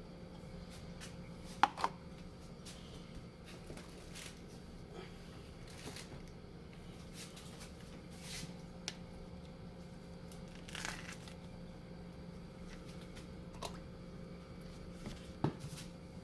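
Scattered light clicks, taps and rustles of strawberries and their packaging being handled for a smoothie, over a steady low hum.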